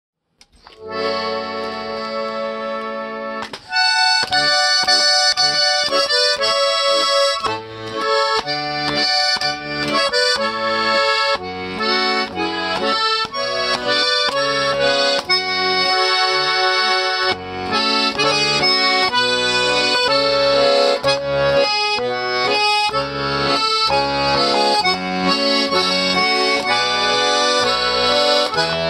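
A garmon (Russian button accordion) plays: it opens on a held chord, then a tune with a melody over a steady bass-and-chord accompaniment.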